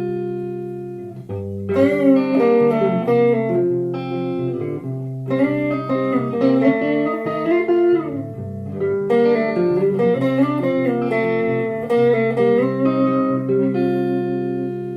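Guitar music built up on a loop station: a picked melody line over ringing, held chord notes.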